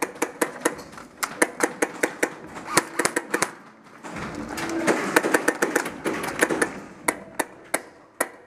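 Airsoft guns firing a rapid, irregular string of sharp single shots, several a second, with a rushing noise between about four and seven seconds in.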